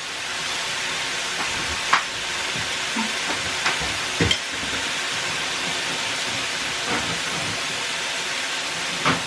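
Steaks sizzling on an electric indoor grill: a steady hiss broken by a few sharp crackles of spitting fat.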